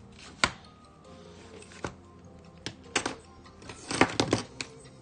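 Sharp little clicks and taps of a small screwdriver and metal parts on a Canon Demi camera's lens and shutter assembly as it is worked on by hand: one about half a second in, a few scattered, then a quick cluster near the end. Quiet background music runs underneath.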